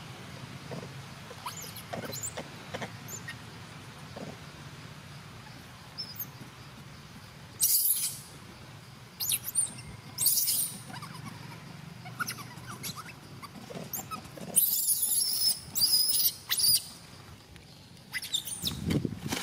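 Baby monkey giving shrill, high-pitched squeals: short cries about 8 and 10 seconds in, then a longer string of them from about 14 to 17 seconds, with light rustling and ticks of leaves between.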